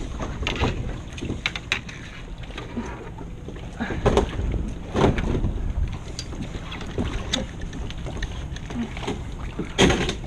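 Wind rumbling on the microphone, with scattered knocks and clunks on a kayak.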